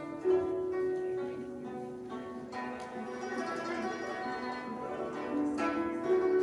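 Guzheng ensemble playing: plucked zither notes ringing on, with a long held note just after the start and fresh clusters of plucked notes about two and a half and five and a half seconds in.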